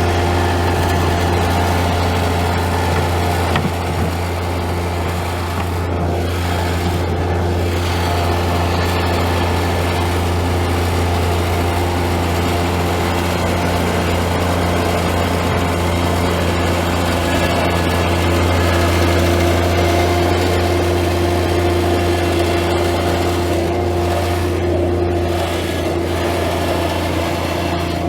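A machine running steadily with a low hum and a few fainter steady tones above it, over a background haze of noise.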